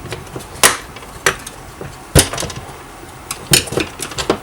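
Half a dozen sharp clicks and knocks of hard plastic and metal chainsaw starter parts and tools being handled and set down, the loudest about two seconds in.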